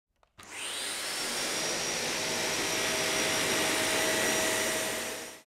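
Dyson Cinetic Big Ball upright vacuum switched on with a click of its power button, then running as a steady rush of air with a high whine. It cuts off suddenly near the end.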